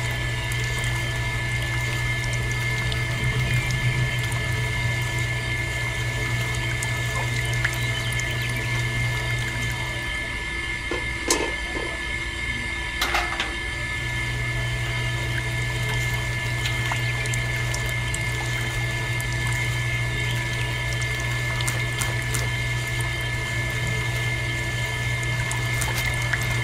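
Small belt-driven electric motor running the rollers of a miniature sugarcane juicer, a steady hum with a thin high whine. The hum drops away for a few seconds about ten seconds in, with a couple of clicks, then comes back.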